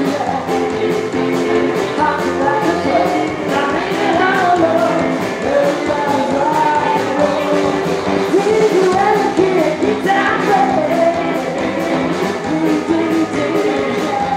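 Rockabilly band playing live: a woman singing over saxophone, electric guitar and drums keeping a steady beat.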